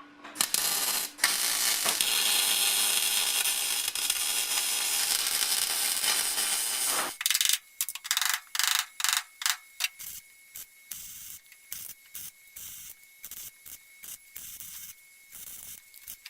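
An electric welder's arc crackling and hissing as a patch is welded into car body sheet metal. It runs as one continuous bead for about seven seconds, then breaks into many short bursts in quick succession, like stitch or tack welds. The welder is running on a setting its user thinks should have been turned up higher.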